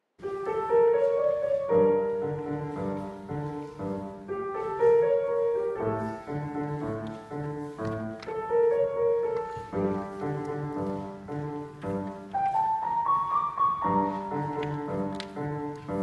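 Background piano music: a melody played over held chords.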